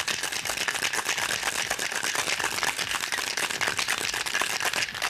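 Ice rattling in a cocktail shaker shaken hard and fast to chill and mix the drink, stopping abruptly at the very end.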